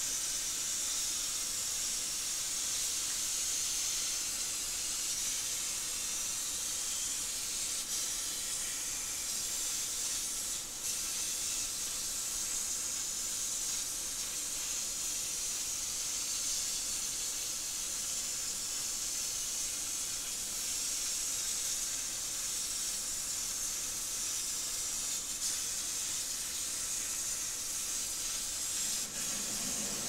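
CNC plasma cutting torch hissing steadily as its arc cuts through 22-gauge sheet steel, with brief dips about 11 s in and near the end.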